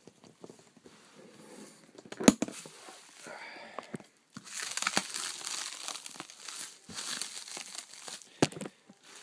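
Plastic packing wrap crinkling and tearing as it is pulled open, with a sharp knock about two seconds in and another near the end.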